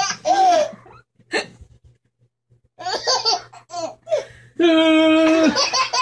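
Baby laughing in fits, stopping for about a second and a half in the middle, with one long drawn-out laugh near the end.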